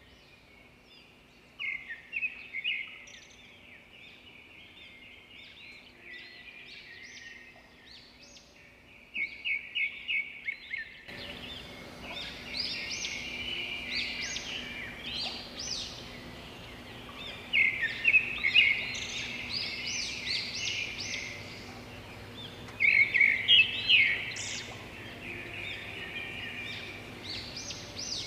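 Small birds chirping in quick runs of short, high notes, with louder bursts of song a few times and a faint steady background hiss beneath.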